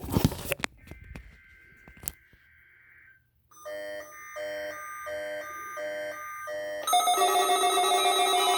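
Electronic intro sounds. A short loud burst of noise comes first, then a faint high steady tone. About halfway in come five pulsing electronic beeps like a phone ringing. Near the end a louder sustained synthesizer chord swells in.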